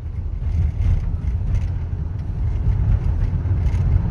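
Steady low rumble of road and engine noise inside the cabin of a 2012 Toyota Sienna minivan under way.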